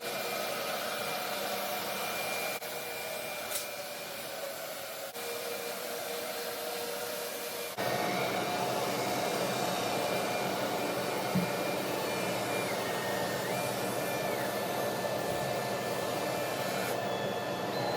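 CNC router running and cutting: a steady hiss of spindle and cutting noise with faint whining tones over it. The level jumps suddenly a few times and is louder from about eight seconds in, and some of the whining tones briefly step up and back down later on.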